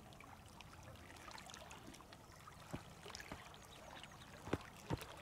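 Faint water trickling at the water's edge, with a few light clicks and taps in the second half.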